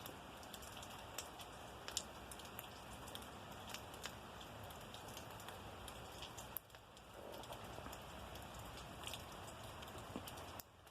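Steady rain falling during a thunderstorm, with scattered individual drops landing as sharp ticks.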